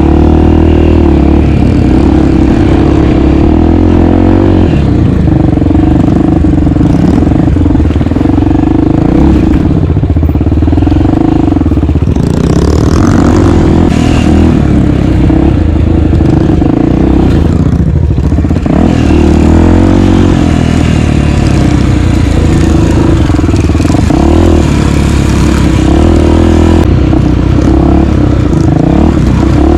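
A 250 cc enduro motorcycle engine runs loud and continuous under riding, repeatedly revving up and easing off.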